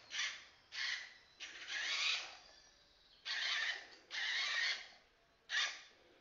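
Roboscooper toy robot's drive motors whirring in six short stop-start bursts as it is driven and turned by remote control.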